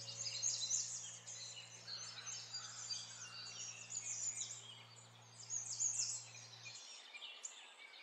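A chorus of small birds chirping and twittering in quick, high-pitched calls, over a soft, low held music note that fades out near the end.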